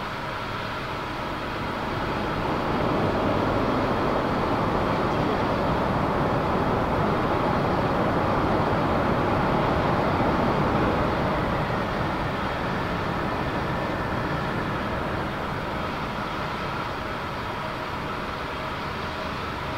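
Boeing 747-400F's four jet engines as a broad, steady rush during the landing rollout, swelling a couple of seconds in and easing off after about eleven seconds as the jet slows.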